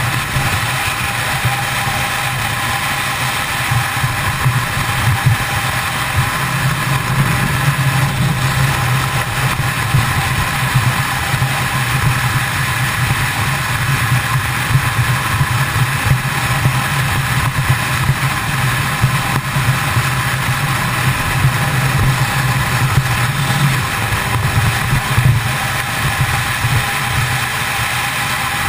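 Kawasaki ZX-10R's inline-four engine running steadily at freeway cruising speed, holding an even note, with wind rushing over the bike-mounted microphone.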